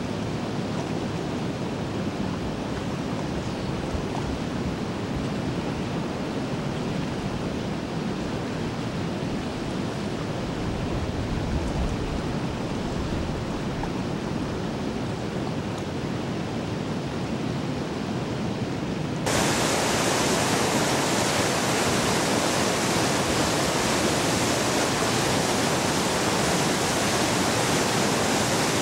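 A steady, dull, low rushing noise. About two-thirds of the way through it cuts abruptly to a louder, brighter rush of whitewater pouring through the dam.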